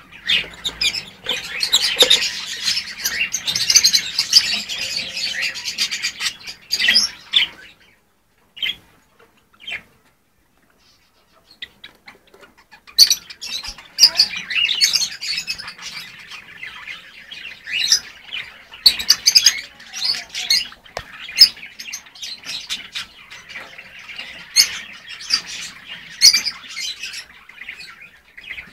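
Lovebirds chattering with shrill chirps and squawks, many birds calling over one another. The chatter stops almost completely for about four seconds in the middle, leaving only a couple of lone chirps, then starts up again.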